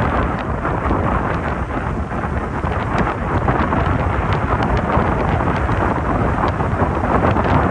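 Hurricane-driven surf breaking and washing up the beach in a loud, steady rush, with strong wind rumbling on the microphone.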